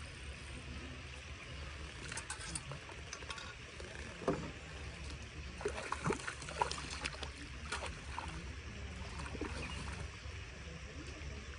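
A hooked fish thrashing and splashing at the surface close to the bank as it is played in on rod and line: a run of irregular splashes, the loudest a little after the middle, over a steady low hum.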